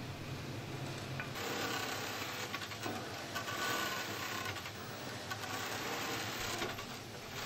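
Industrial automatic pattern sewing machine running and stitching at speed, a dense, steady mechanical noise that starts about a second in, after a low machine hum.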